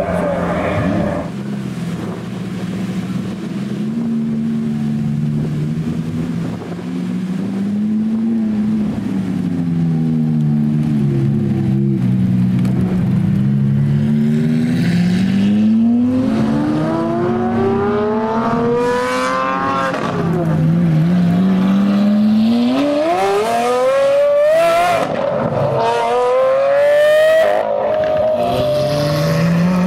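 Lamborghini Aventador V12 engines accelerating hard away one after another. Each engine note climbs in pitch, then falls back and climbs again, several times, with a few sharp cracks between.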